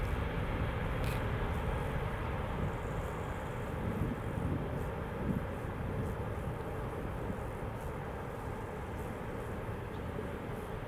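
Boeing 747-400 freighter's four jet engines at takeoff power, a steady low rumble heard from behind as the aircraft rolls away and lifts off, slowly fading.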